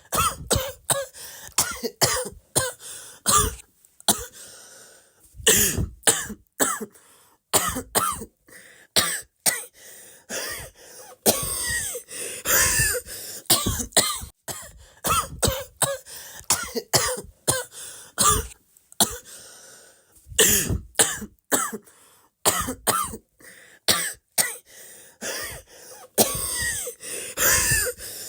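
A person coughing over and over in quick runs of short coughs, with a few brief pauses between runs.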